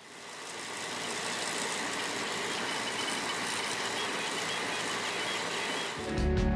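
HevORT DIY 3D printer printing at high speed: a steady mechanical rush of fans and motion, with faint high whining tones that shift in pitch as the print head darts about, fading in over the first second. Music with a heavy beat comes in near the end.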